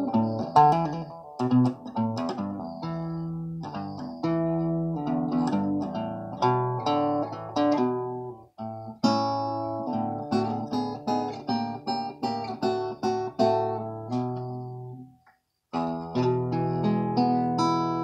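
Resonator guitar fingerpicked in a blues, a steady run of picked bass notes under single-note melody lines. It stops briefly about fifteen seconds in, then a last chord is struck and left ringing.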